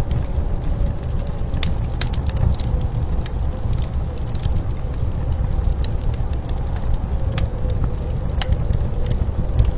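Blizzard wind as a steady low rumble, with the scattered snaps and pops of a crackling fire over it.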